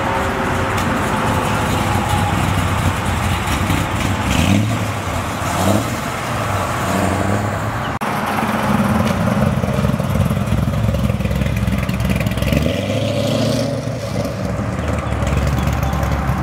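Corvette V8 engines revving and accelerating as two cars pull out one after the other. The exhaust note rises and falls a few times in the first half, then after a break a second car runs louder and steadier.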